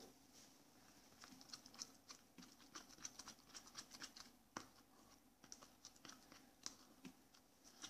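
Plastic spoon stirring fluffy slime in a plastic cup as added borax water thickens it into sticky lumps: faint, irregular wet clicks and squelches.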